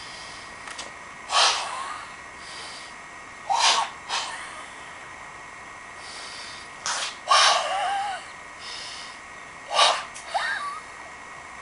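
Forceful breath exhalations from a White Crane kung fu practitioner working through the Sanzhan form: a series of short, sharp hissing bursts a second or two apart. A couple of them carry a brief vocal grunt.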